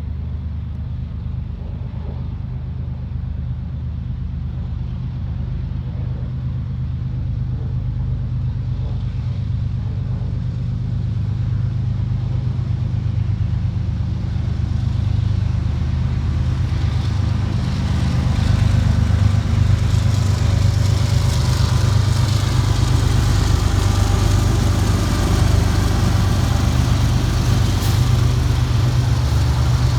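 GE diesel-electric freight locomotives approaching under power, their engines a steady low drone that grows louder. From about halfway through, the clatter and hiss of wheels on rail rises with it.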